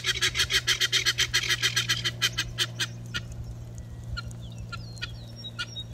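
A mass of honeybees humming steadily inside a nuc box, heard through its screened vent. Over the hum, a fast run of sharp rasping pulses, about nine a second, fades away by about three seconds in, and faint chirps follow near the end.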